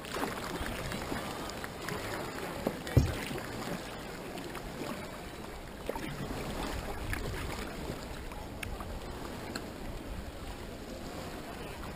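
Water sloshing around a kayak on choppy harbour water, with small paddle splashes and knocks against the hull, and a single sharp knock about three seconds in.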